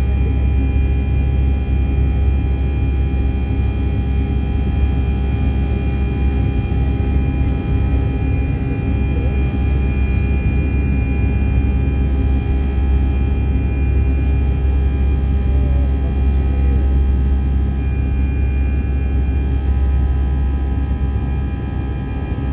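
Airbus A320 cabin noise from a window seat: the steady drone and low rumble of the CFM56 jet engines and airflow, with several steady whining tones, unchanging in level.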